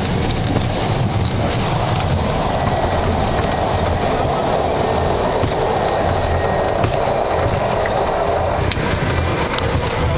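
Small propeller plane's engine and propeller running at high power, heard from inside the cabin as a loud, steady drone over a low rumble, during the ground roll on a dirt airstrip.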